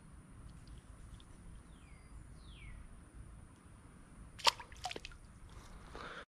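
Quiet creek ambience with two faint downward-sliding bird whistles, then a few sharp water splashes and drips about four and a half seconds in.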